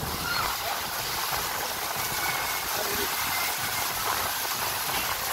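Steady rushing noise of wind buffeting the microphone, over water running through the slide.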